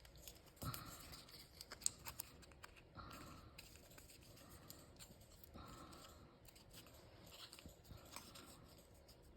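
Faint rustling and light clicks of die-cut cardstock being handled and creased along its score lines as it is folded.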